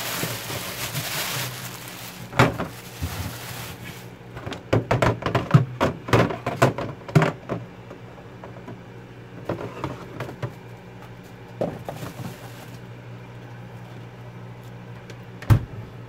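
A plastic bag rustling as it is lifted out of a fridge's freezer compartment, then a run of clattering knocks as containers are handled and set down, and a single heavy thunk near the end. A steady low hum runs underneath.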